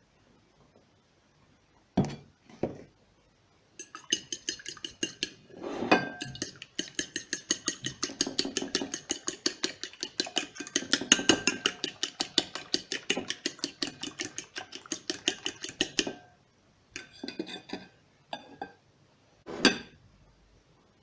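A metal utensil beating rapidly against a bowl, about five ringing clinks a second for some twelve seconds, with a few separate knocks and clinks before and after.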